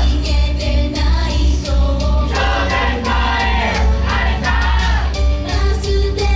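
Loud live pop music with several voices singing over a heavy bass beat.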